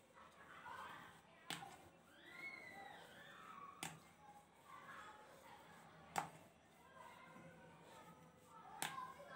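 Quiet rolling of dough with a wooden rolling pin on a wooden board, with a short sharp knock of the pin on the board about every two and a half seconds, four in all; the one about six seconds in is the loudest.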